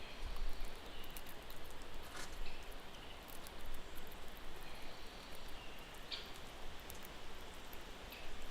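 Outdoor natural ambience: a steady hiss with low wind rumble, scattered small clicks and rustles, and a few faint, short high chirps.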